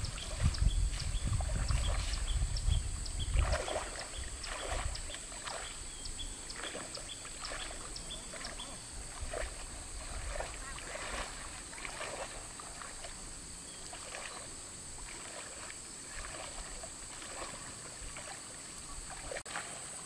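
Water splashing and sloshing in short irregular bursts, with a steady high insect drone behind. A low rumble is heaviest for the first three or four seconds.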